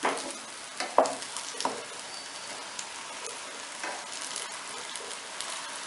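Sweet potato cutlets sizzling in shallow oil in a nonstick frying pan, with a few sharp knocks and scrapes of a metal spatula and fork as they are turned over; the loudest knock comes about a second in.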